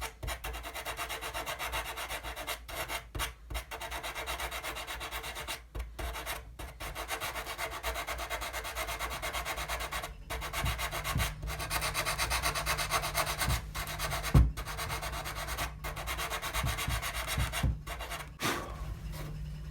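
Sandpaper wrapped around a dowel rubbed back and forth by hand on a curved wooden capping, smoothing back a spot that stands proud. The strokes run quickly with a few brief pauses, and there is one sharp knock about two-thirds of the way through.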